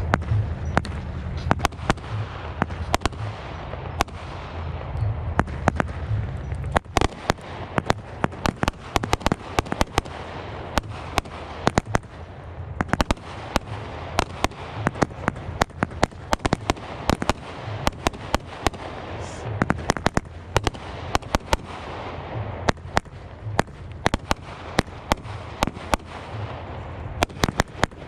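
Aerial fireworks going off in quick succession: a dense, irregular string of sharp bangs and pops from bursting shells, with a crackling haze between the bangs.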